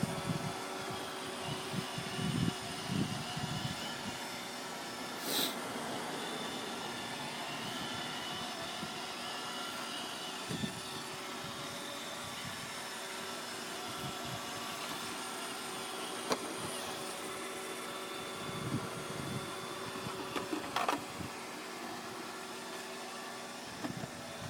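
iRobot Roomba 580 robot vacuum running steadily with a whirring, whining motor, with a few short knocks and clicks along the way.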